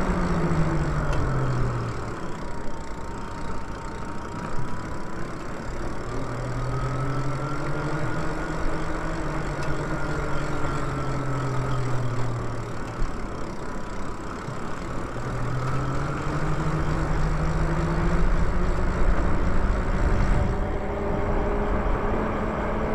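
Electric bike motor whining under way, its pitch falling, rising and falling again as the bike slows and speeds up, then climbing once more in the last few seconds, over a steady low rumble.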